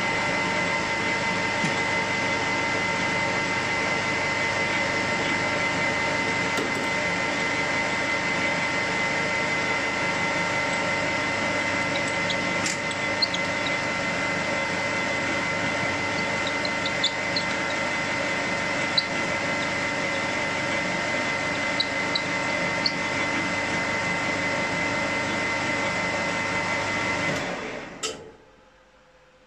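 Metal lathe running steadily with a whine, its chuck spinning with a workpiece, with a few light ticks in the middle; it is switched off near the end and runs down.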